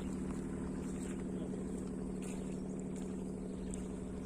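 A boat's engine running steadily, an even hum that holds one pitch.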